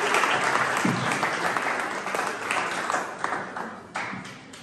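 Congregation applauding a welcome, the clapping tapering off over the last second or so.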